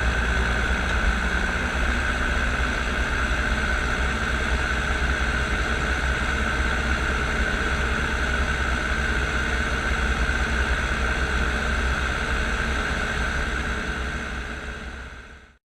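Steady engine drone with a deep rumble and a strong whining band above it, unchanged throughout, then fading out over the last second or so.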